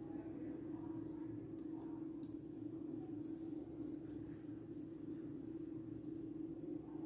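Small buckyball magnet balls clicking faintly as they are snapped into place one by one, several separate clicks about a second apart, over a steady low hum.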